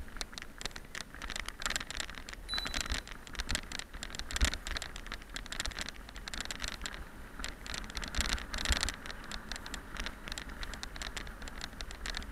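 Mountain bike riding along a gravel track: the tyres crunch over loose stones while the bike rattles and clicks over the bumps, with a harder knock about four seconds in. Wind rumbles on the microphone underneath.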